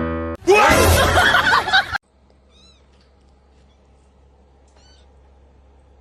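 A cat yowling loudly for about a second and a half, then cut off abruptly. After the cut there is a low steady hum with two faint, high, short chirps.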